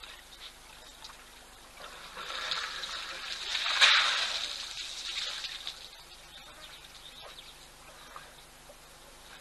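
Water splashing and pouring as African elephants drink at a waterhole. It swells about two seconds in, peaks near the middle, then fades.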